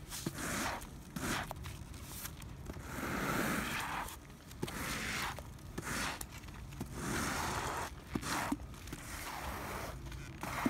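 Squeegee pushing wet asphalt sealer across a driveway in repeated strokes, a scraping swish about every two seconds.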